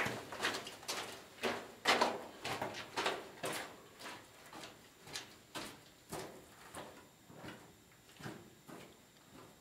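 Footsteps on the rocky floor of a mine tunnel, about two a second, growing fainter as the walker moves away toward the entrance.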